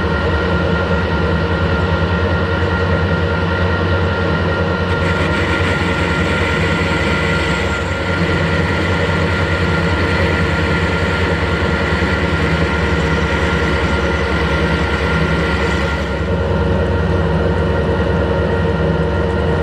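Harrison metal-turning lathe running steadily under power, its headstock gears giving a steady whine over a low drone. The sound turns brighter for about ten seconds in the middle, then settles back.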